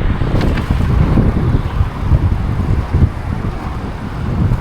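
Wind buffeting the microphone, a heavy low noise that rises and falls in uneven gusts.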